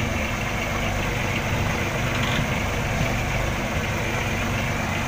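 Outrigger fishing boat's engine running steadily, a constant low drone with a rushing noise over it.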